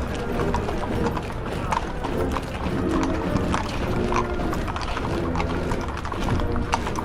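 Horses' hooves clip-clopping on a hard road in an irregular, overlapping beat, as from several mounted troops passing. Band music plays underneath.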